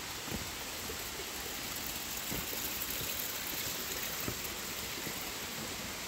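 Steady rushing of flowing water from a river or waterfall out of sight, with a few faint soft thumps.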